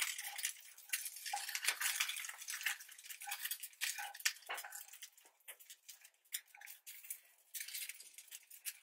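Spatula scraping and tapping against a nonstick frying pan while browned nuggets are turned and pushed around. A run of quick, light scrapes and clicks that thins out past the middle and picks up again near the end.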